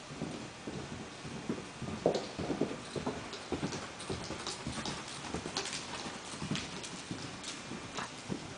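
Hoofbeats of a ridden pinto mare moving at a working gait over the soft dirt footing of an indoor arena. The thuds are loudest about two to three seconds in.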